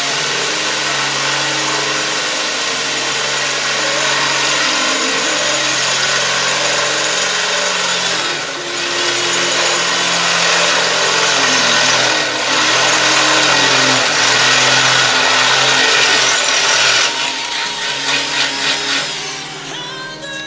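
Power drill running under load as it bores into the steel edge of a snowplow blade, easing off briefly about eight and twelve seconds in. Near the end the sound wavers in quick pulses.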